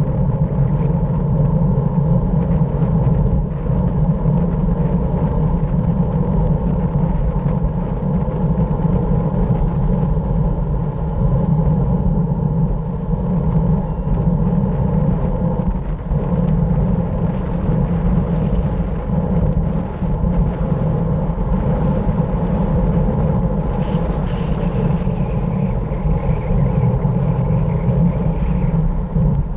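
Steady wind rush buffeting the microphone, with road rumble, while descending a mountain road at speed.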